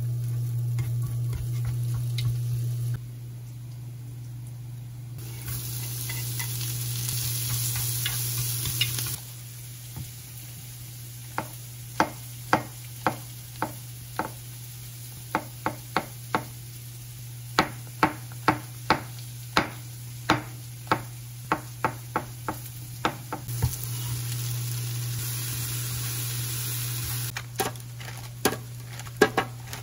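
Diced sweet potato sizzling in butter in a small square frying pan while being stirred with a wooden spatula. Partway through, a knife chops a mushroom on a wooden cutting board: a long run of sharp knocks, about two a second. The sizzling comes back near the end.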